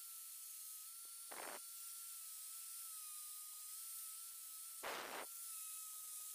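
Angle grinder with a sanding pad running with a steady thin whine and hiss, with two short rasping bursts, about a second and a half in and again near five seconds, as the pad sands the wooden blade.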